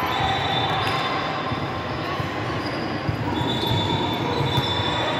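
Steady background noise of an indoor basketball hall during a pause in play, with a thin high squealing tone that holds for about a second and a half near the start and again from about three seconds in.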